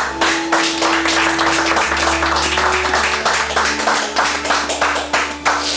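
A small group clapping hands in dense, uneven applause over soft background music with long held notes.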